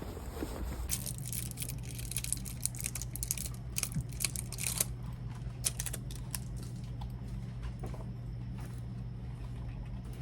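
Computer keyboard typing: a fast run of key clicks for about four seconds, then slower, scattered keystrokes, over a steady low hum.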